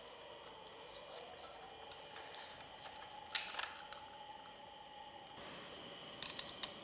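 Faint clicks and taps of hand work as a screw and the USB socket holder are fitted: one sharp click midway and a short run of clicks near the end, over a steady faint hum.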